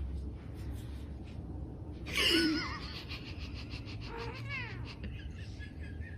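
A cat meowing: one loud, wavering meow about two seconds in and a shorter, falling meow a couple of seconds later, over a low steady rumble.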